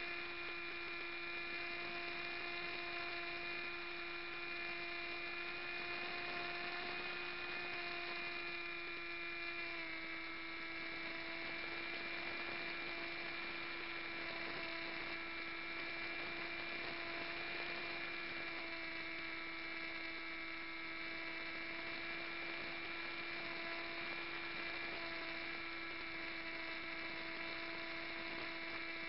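Model aircraft's motor and propeller running steadily in flight, a constant whine with many overtones that drops slightly in pitch about ten seconds in as the throttle eases.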